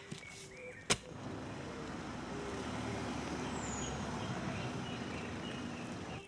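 A sharp knock just under a second in, then an Audi sedan driving slowly up: a steady low engine and tyre noise.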